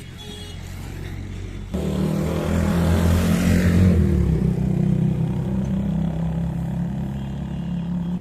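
A motor vehicle's engine running, coming in abruptly about two seconds in, swelling with a rush of noise and then easing off before cutting off sharply.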